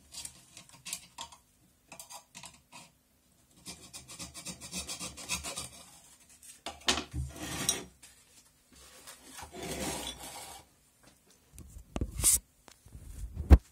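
Subwoofer driver being pulled apart by hand: the paper cone, spider and voice coil scrape and rub against the metal basket in irregular bursts, with a sharp knock near the end.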